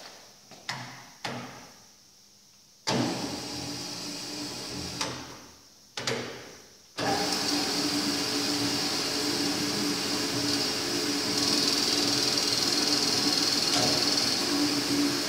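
ARG 220 plus metal-cutting bandsaw: a few knocks and clicks of the machine being handled, then its motor switches on about three seconds in and off again near six seconds. It starts again about seven seconds in and runs steadily with a low hum and a high hiss.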